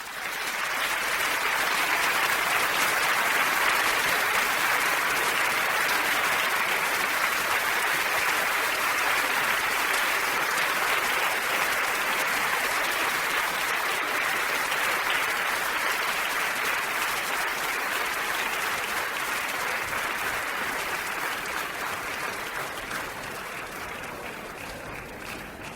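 A crowd applauding: dense, steady clapping that swells in within the first second and slowly tapers off over the last several seconds.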